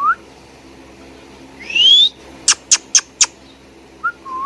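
Indian ringneck parakeet whistling and chirping: a short rising whistle, then a louder whistle sliding upward about two seconds in. Four short, sharp chirps follow in quick succession, and a short whistle dips and rises near the end.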